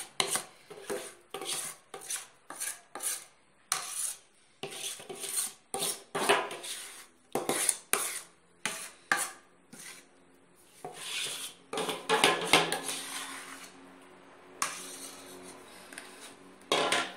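A metal spoon scraping and knocking against a mixing bowl and a metal baking pan as thick cake batter is scraped out and spread, in short irregular scrapes and clinks. A knock about twelve seconds in leaves a brief ring.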